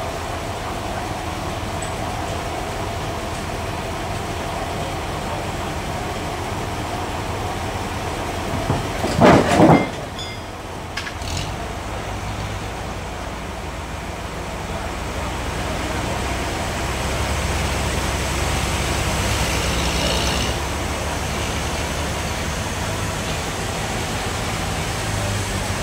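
Forklift engine running steadily under a heavy load of sawn wood. About nine seconds in, a loud scraping thud lasting about a second as the big wood slab is laid down onto the forks; from about fifteen seconds the engine runs louder for several seconds as the forklift lifts and moves the slab.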